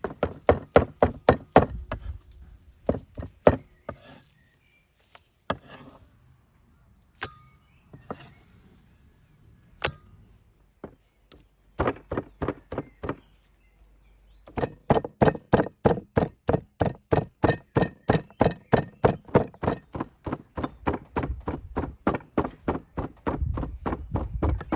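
Meat cleaver chopping beef into mince on a wooden chopping board. A quick run of chops, then a stretch of scattered single strokes, then a steady run of about three chops a second over the last ten seconds.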